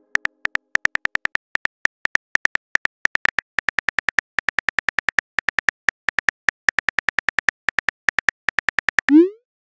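Phone keyboard typing sound effects: a rapid run of short clicks, several a second with brief pauses, one per letter typed. Near the end comes a short rising swoosh, the message-sent sound.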